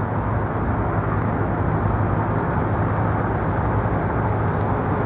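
Steady low rumble of distant traffic and aircraft.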